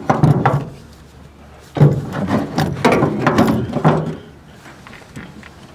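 Metal lap-belt buckles and latch hardware rattling and clicking as the belts are handled, in a short burst at the start and a longer one from about two seconds in to about four.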